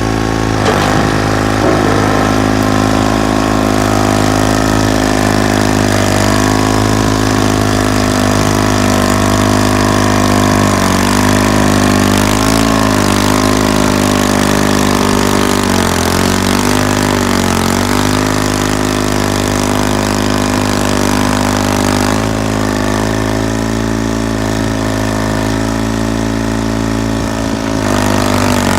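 The General Motors-built diesel engine of a John Deere 440 industrial crawler tractor running steadily. Its pitch dips briefly and recovers a few times near the middle.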